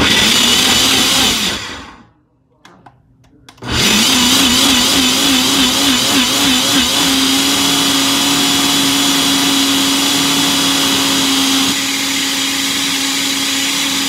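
Ninja personal blender running loud: a short pulse of the motor, a brief stop, then the motor runs continuously. For a few seconds after it restarts the motor's pitch wavers as the blades chop through frozen blueberries, then it holds steady once the mixture has turned smooth.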